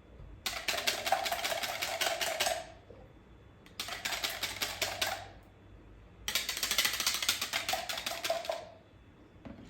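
Hand whisk beating rapidly against a mixing bowl in three bursts of about two seconds each, a fast run of ticks with short pauses between.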